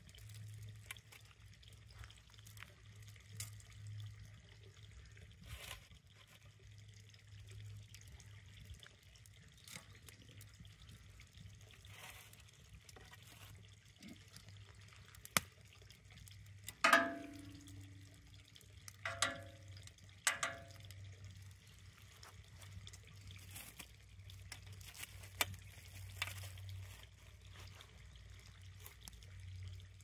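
Wood fire crackling under a wire grill, with scattered sharp pops. Past the middle, metal tongs clink against the grill three times, each with a short ring.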